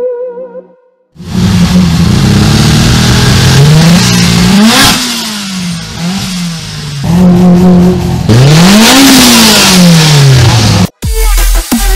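Car engine revving hard several times. The pitch climbs to a peak and drops off, blips briefly, holds, then makes one long climb and a slow fall back down.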